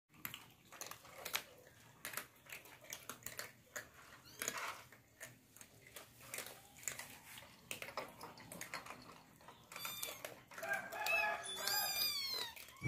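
Cats and kittens eating dry kibble from a plastic bowl: faint, irregular crunching and clicking. Near the end come several short animal calls that bend in pitch.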